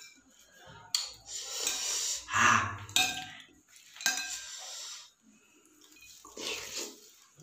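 A spoon clinking and scraping against a dish while eating seblak, with sharp clinks about one, three and four seconds in. A louder noisy burst comes about two and a half seconds in.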